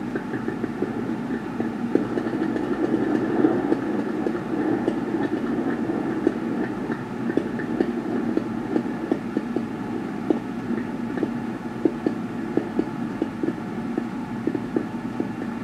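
Fireworks going off in a dense barrage: a continuous rumble of many bursts with sharp cracks and pops through it, the separate cracks standing out more in the second half.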